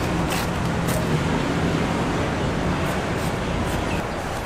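Steady street background noise with a low hum, like passing traffic, broken by a few light clicks.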